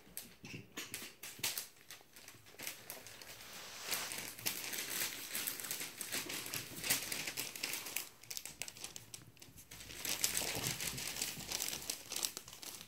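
Crinkling and rustling with scattered clicks from Havanese puppies and their mother moving and playing right up against the microphone on the carpet, loudest in two spells, about four seconds in and again about ten seconds in.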